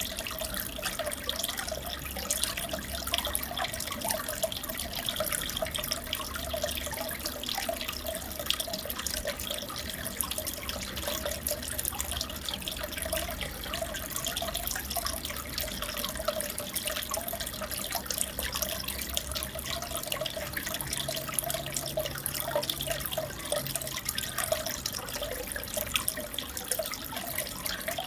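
Aquarium water trickling and bubbling steadily, with a dense patter of small drips and splashes.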